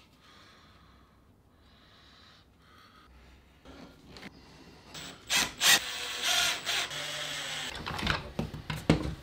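Faint handling sounds at first. Past the middle a handheld wood router runs for a couple of seconds, cutting into plywood with a thin high whine, and a few knocks and clicks follow near the end.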